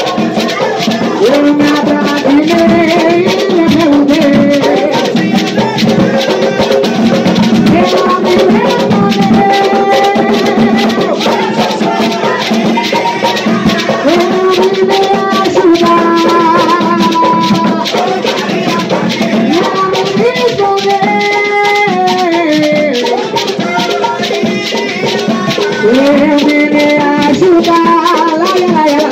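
Curimba for Exu: hand drums and rattling percussion keep up a driving rhythm while voices sing the chant's melody in repeated phrases.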